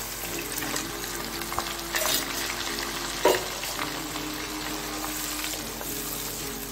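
Ground onion, garlic and tomato paste sizzling in hot sesame oil in a pan as it is stirred with a wooden spatula. Two short knocks come about two seconds in and, louder, just past three seconds.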